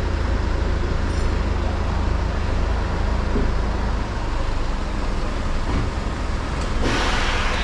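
Road vehicles idling and moving close by, a steady deep engine rumble under a wash of traffic noise. A short hiss sounds near the end.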